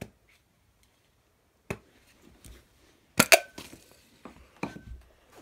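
Plastic slime container and its packaging being handled and opened: a handful of separate sharp cracks and clicks, the loudest pair a little after three seconds in.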